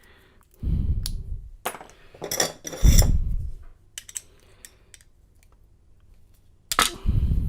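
Metal clinking and knocking of keys and a lock being handled, in several short clattering bursts with faint clicks between.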